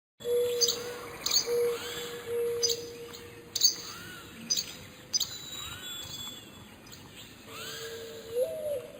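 Several wild birds calling together: sharp high chirps repeating roughly once a second, arching whistled notes, and a lower held note that comes and goes. It starts abruptly after a brief silence.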